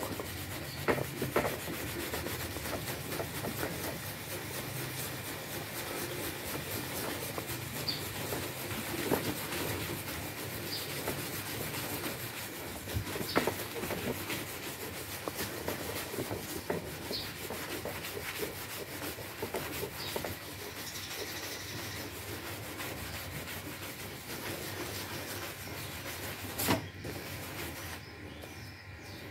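Wide bristle paintbrush scrubbing foamy cleaner back and forth over a car's painted metal hood: a steady, fast scratching of bristles on wet paint, with a few sharper clicks. The brush is working a dish-soap and floor-cleaner mix into yellowed white paint to lift the discoloration.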